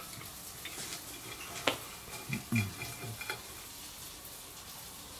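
Quiet eating at the table: a fork clicking and scraping on a plate, with scattered light ticks and one sharp click about a second and a half in. A short low hum follows soon after.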